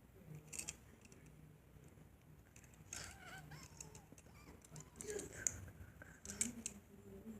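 Quiet, scattered clicks and rustles of hands handling small plastic Lego pieces, with a few sharper clicks about half a second in, around three seconds, and around five and six and a half seconds.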